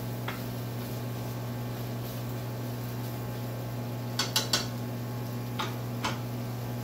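Wooden spatula stirring and knocking against a nonstick skillet: a light tap just after the start, three sharp knocks close together about four seconds in, and two lighter ones about a second later. Under it, the steady hum of a microwave oven running.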